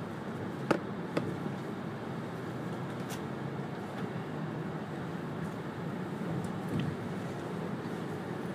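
Steady running noise inside the passenger cabin of an E2-series Shinkansen train, with a few short sharp clicks in the first few seconds.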